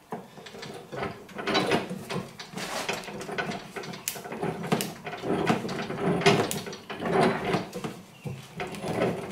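Rubber hose being pushed and worked onto a barbed fitting on a sprayer: irregular rubbing, rustling and small clicks and knocks of parts being handled.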